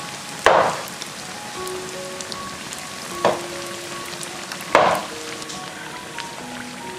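Youtiao dough strips deep-frying in hot oil in a wok, a steady fine sizzle, with light background music playing a simple slow melody over it. Three sharp hits stand out, about half a second, three seconds and nearly five seconds in.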